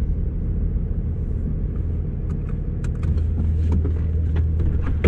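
Cummins turbo-diesel engine of a Dodge Ram 3500 pickup idling, a steady low drone heard from inside the cab that grows slightly stronger about three seconds in, with a few faint clicks.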